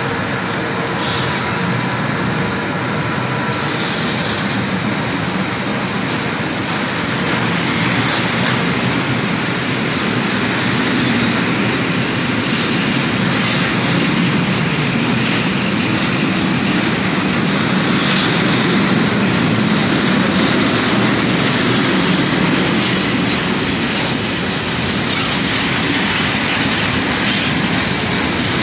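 Freight train of hopper wagons rolling past: a steady rumble of wheels on rail with clacking over the rail joints and a high wheel squeal. It grows louder about eight seconds in.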